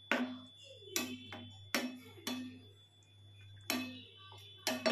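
A spatula knocking and scraping against a nonstick pan while stirring a watery fish curry: about seven sharp knocks at uneven intervals, each ringing briefly, two close together near the end.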